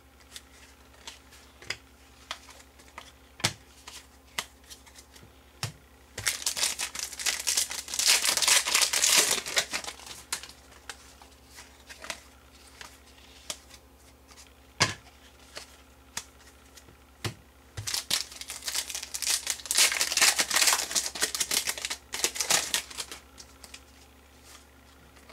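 Trading-card pack wrappers crinkling and tearing in two stretches of a few seconds each, with scattered light clicks and taps of cards being handled.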